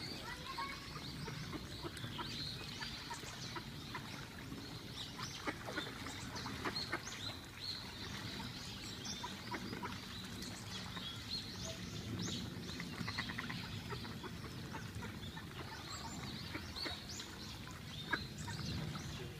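A flock of mallards and other ducks feeding on the water, keeping up a busy chatter of many short, overlapping calls.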